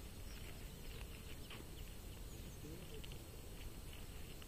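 Open-air ambience: a steady low rumble of wind on the microphone, with faint short bird chirps and a brief distant voice about three seconds in.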